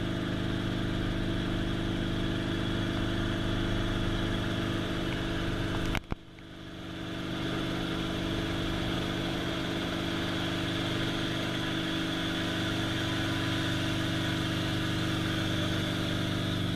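Helicopter turbine engine and rotor running steadily, heard from inside the cabin as a constant drone with several steady tones. The sound briefly cuts out about six seconds in and then comes back.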